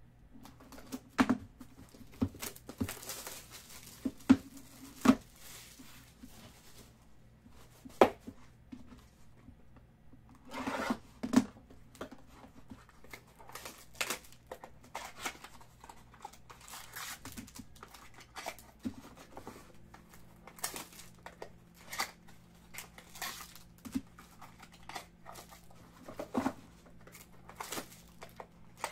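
Topps High Tek baseball card box and pack being opened by hand: the wrapper tearing and crinkling, with scattered sharp clicks and snaps as the cardboard and cards are handled.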